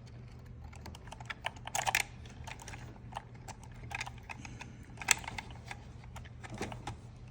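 Small irregular clicks and taps of a tool working at the drive shaft pin on an RC truck's plastic and metal parts, louder about two and five seconds in, over a low steady hum.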